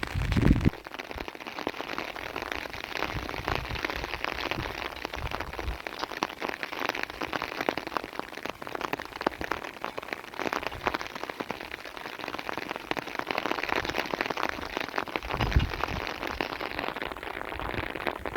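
Steady rain falling on a surface, a dense patter of drops, with a dull low thump near the start and another near the end.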